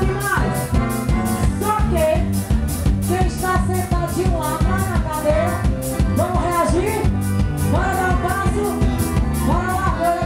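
Live band playing upbeat dance music: a fast, steady drum beat with a bass line and a lead melody over it.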